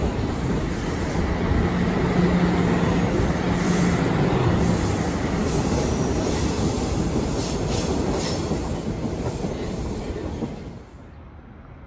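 TTC Toronto Rocket subway train running past and away along the tracks, with a low steady hum for a few seconds early in its pass. The sound drops off abruptly near the end.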